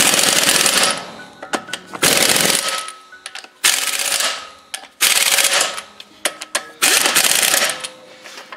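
Impact wrench driving in wheel bolts on refitting the wheel: five loud rattling bursts, each under a second, with short pauses between them.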